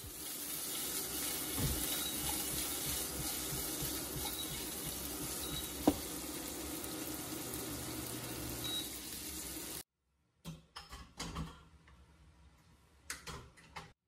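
Pieces of meat sizzling in a nonstick frying pan as the pan is tossed, with one sharp knock about six seconds in. The sizzle cuts off suddenly after about ten seconds, and a few light clicks and knocks follow.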